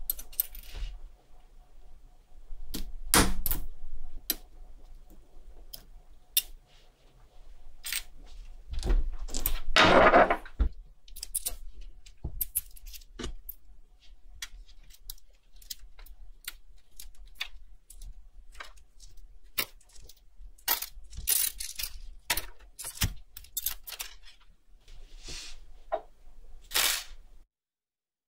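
Small metal watch parts and tools clicking, clinking and scraping as they are handled, with one louder, longer rasp about ten seconds in. The sound stops abruptly just before the end.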